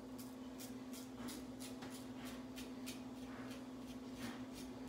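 Single-edge GEM-style safety razor scraping through lathered stubble on the upper lip, in short quick strokes about two or three a second, over a steady low hum.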